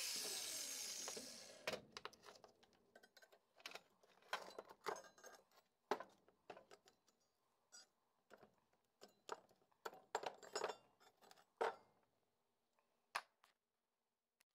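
An angle grinder winding down at the start, then a hammer striking a rough copper casting in a series of irregular metallic knocks and clinks.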